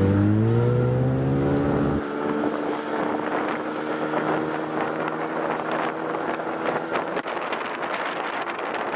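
Bass boat's outboard motor speeding up, its pitch rising over the first second and a half, then running steadily at speed under wind buffeting the microphone. About seven seconds in the engine tone drops away, leaving wind and rushing water.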